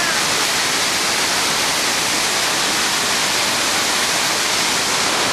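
Waterfall plunging, a loud steady rushing hiss of falling water.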